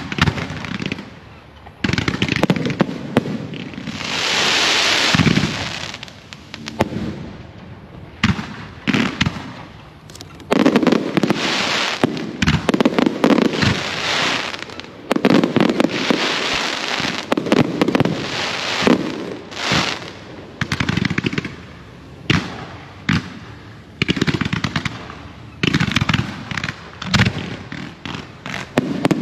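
Fireworks and firecrackers going off in repeated dense volleys of rapid bangs and crackling. About four seconds in there is a longer stretch of rushing hiss.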